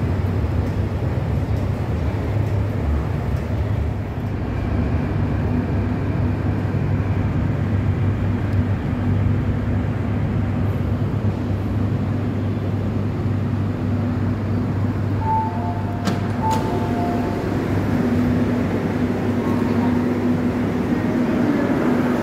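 MTR Kwun Tong Line trains moving along an underground station platform: a steady low rumble and hum throughout. A brief two-note electronic tone sounds twice about fifteen to seventeen seconds in.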